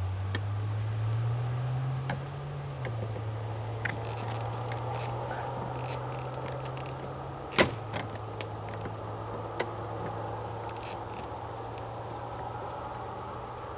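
A motor spins up, climbing in pitch, then runs with a steady hum. There are light clicks throughout and a single sharp metallic clink about halfway through.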